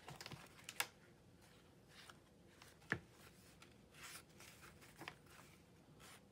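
Faint rustling of paper and card as an envelope journal is handled, turned and flipped open, with two brief sharp taps, about a second in and about three seconds in.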